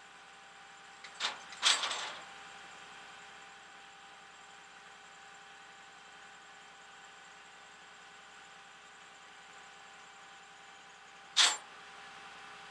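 Sharp knocks from the tow operator handling gear around a car on a rollback tow truck deck: two knocks followed by a short clatter a second or two in, and one more sharp knock near the end, over a faint steady hum.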